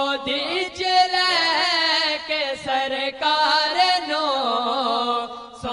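Young male voices reciting a naat, an Islamic devotional song in praise of the Prophet, in Saraiki, sung through microphones. A single melismatic line with long, wavering ornamented notes runs over a steady held tone, pausing briefly between phrases.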